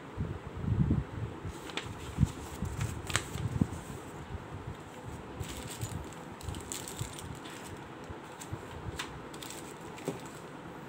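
Handling noises: soft thumps and clicks as paper is moved, then a small plastic bag holding a metal knob crinkling in the hand and being set down.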